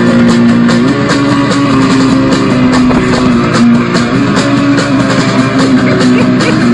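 Rock music: electric guitar holding low notes that step to a new pitch every second or so, over a steady drum-kit beat.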